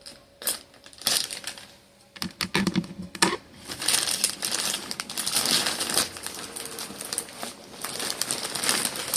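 Mail-order packaging crinkling and rustling as it is handled and pulled at to get it open: a few sharp clicks and short rustles at first, then steady crinkling from about a third of the way in.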